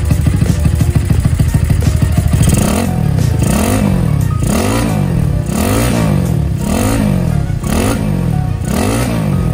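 Honda single-cylinder motorcycle engine running through a cheap knockoff (KW) slip-on silencer. It idles with a fast low putter, then from about a third of the way in it is blipped about once a second, each rev rising and falling back.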